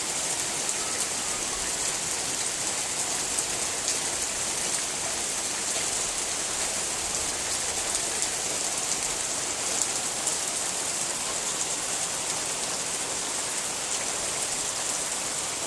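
Steady rain falling: an even hiss with scattered faint ticks of drops landing.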